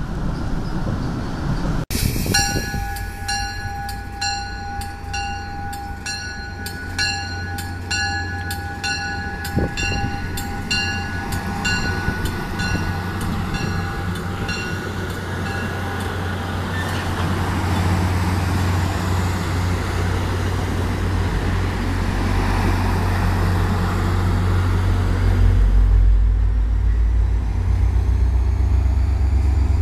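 NJ Transit Comet coaches rolling past, with a steady ringing tone and a sharp ding about twice a second over the first half, typical of a grade-crossing warning bell. The low rumble of the diesel locomotive pushing at the rear of the train grows louder in the last few seconds.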